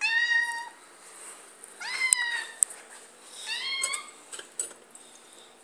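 Domestic cat meowing three times, short high-pitched meows about a second and a half apart, the later two rising in pitch, with a few light clicks between them.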